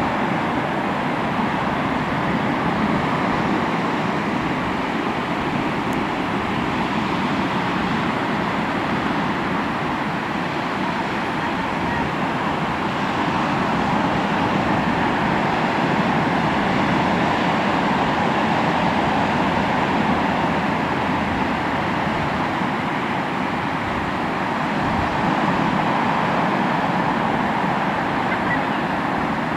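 Sea waves washing onto the shore: a continuous wash of surf that slowly swells and eases.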